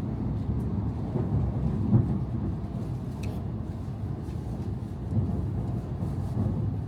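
A train in motion: a steady low rumble with a few soft knocks.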